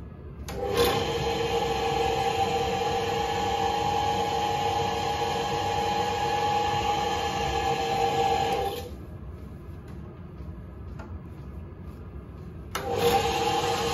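Myford ML7 lathe running under its single-phase electric motor: switched on, it runs with a steady whine for about eight seconds, then stops, and starts up again near the end.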